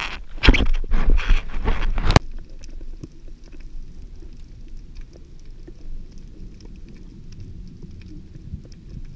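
Water splashing and sloshing around a half-submerged action camera at the surface, cutting off abruptly about two seconds in. A low underwater rumble with faint scattered clicks follows.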